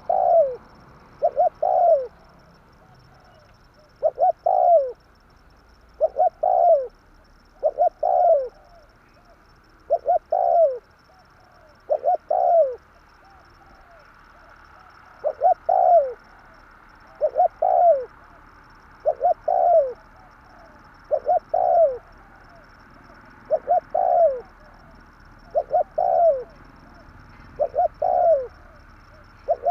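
Spotted dove cooing, repeating its short phrase about every two seconds; each phrase is two or three notes, the last one falling in pitch.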